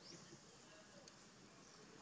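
Near silence: faint outdoor background, with a brief faint high chirp right at the start.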